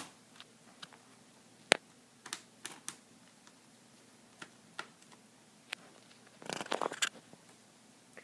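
Scattered small clicks and taps of a screwdriver and tiny screws on a laptop's plastic screen bezel, with a sharper click a couple of seconds in and a brief rattle of clicks near the end.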